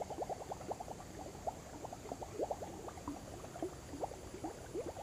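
A chorus of frogs at the pond, calling in fast runs of short croaks, about eight or ten a second at first, thinning out in the middle and picking up again near the end. A faint steady high-pitched hum runs underneath.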